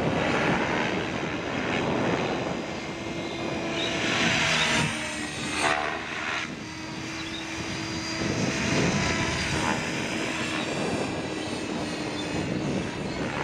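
Gaui X5 radio-controlled helicopter flying aerobatics overhead, its rotor noise swelling and fading as it manoeuvres. A steady hum is held for several seconds in the middle.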